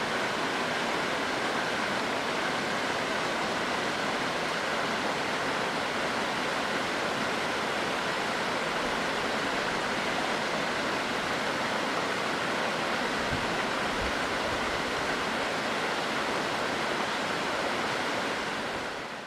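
Waterfall: water pouring over a rock face and splashing into the pool below, a steady, dense rushing that fades out near the end.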